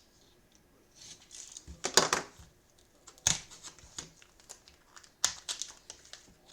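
Crinkling and tearing as a trading card hanger box and its plastic-wrapped card packs are ripped open and handled, in several sharp bursts with the loudest about two, three and five seconds in.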